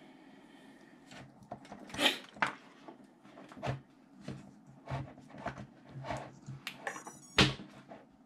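Hands handling a quadcopter's wire leads and connectors on a desk: a string of light clicks and knocks, with louder knocks about two seconds in and near the end, and a brief faint high-pitched buzz just before the last one.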